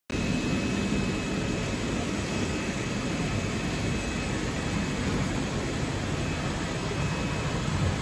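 Plastic spiral-hose extrusion line for vacuum cleaner hose running: a steady, even machinery noise with a faint high whine.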